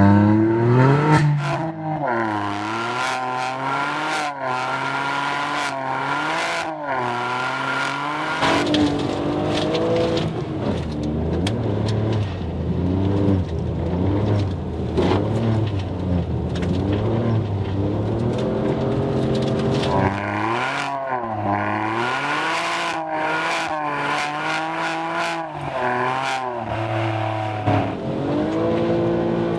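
Ford Fiesta 1.0 EcoBoost three-cylinder turbo engine heard through a race cat-back exhaust, its note rising and falling again and again as it is driven hard, with steadier stretches around the middle and near the end.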